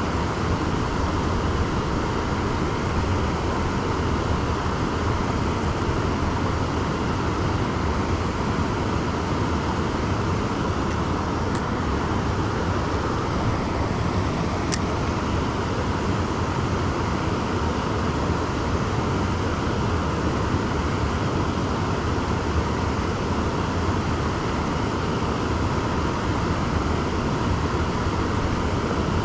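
Steady rushing of a shallow, rocky river running over a small weir, an even noise that holds at one level throughout.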